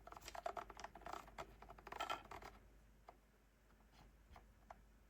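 Faint quick clicking from the scroll wheel and buttons of a Runningsnail MD-329 weather radio as its menus are scrolled through, thinning to a few scattered ticks about halfway in.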